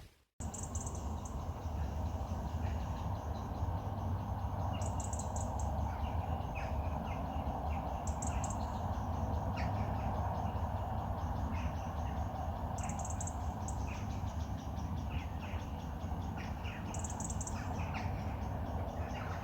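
Birds calling and singing, a short high chirping phrase repeating every few seconds, over a steady low background rumble.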